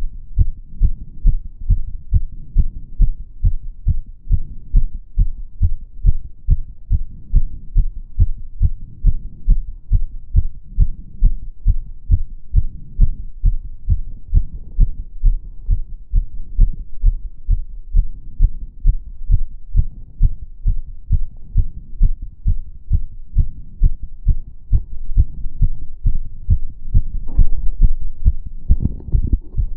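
A person's heartbeat heard close up, fast and regular, raised by step-up exercise. Near the end a louder rumble rises over the beats.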